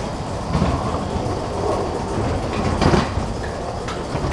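Ghost train ride car rolling along its track: a steady low rumble with occasional clattering knocks, the loudest about three seconds in.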